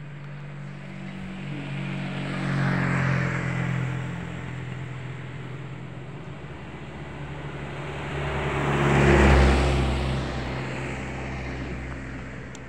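Two road vehicles drive past one after the other, their engine and tyre noise swelling and fading about three seconds in and again about nine seconds in. The second, a truck, is louder, with a deep engine note.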